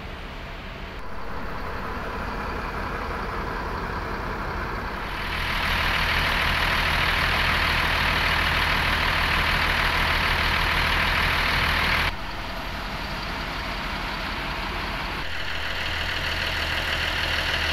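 Diesel bus engines idling: a steady low hum under a broad hiss. The hiss grows louder about five seconds in and drops off abruptly about twelve seconds in.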